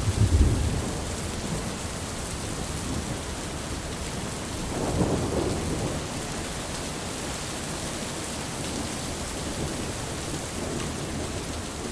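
Steady rain falling with thunder: a heavy low rumble dying away about a second in, and another rumble swelling and fading about five seconds in.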